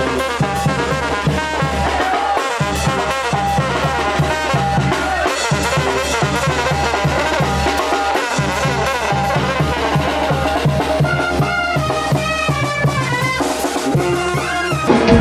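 Mexican banda music: trumpets and trombones playing over a steady drum and bass beat.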